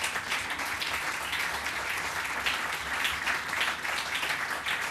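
Audience applauding: many hands clapping together in a steady, even patter that holds its level throughout.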